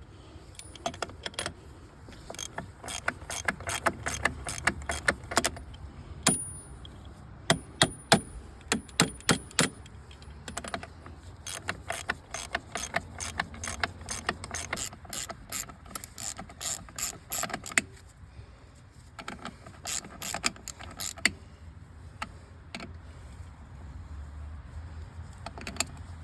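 Hand ratchet spanner clicking in quick runs of sharp metallic ticks as nuts or bolts on a tractor's hydraulic steering ram are worked, with pauses between runs.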